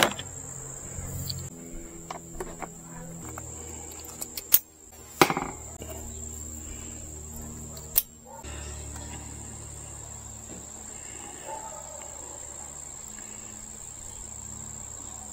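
Steady high-pitched insect chorus, with a few sharp clicks and knocks from handling the solar panel's cable and plugging its connector into the power station.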